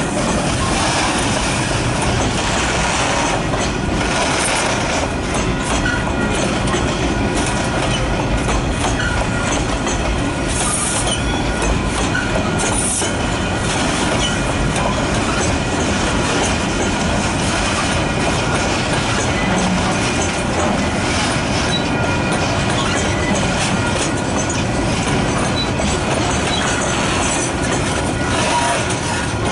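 Freight wagons rolling past at close range: a steady rumble of steel wheels on the rails with clickety-clack over the rail joints, and a few brief high wheel squeals.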